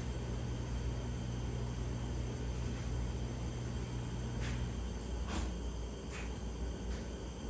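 Propane torch flame burning steadily against a thermocouple, a low rumble with a hum in it that drops out a little past halfway; a few faint clicks follow.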